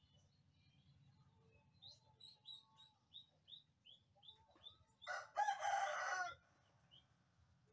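A rooster crowing once, loud and a little over a second long. Before it comes a quick run of about ten short, high, falling chirps from a small bird.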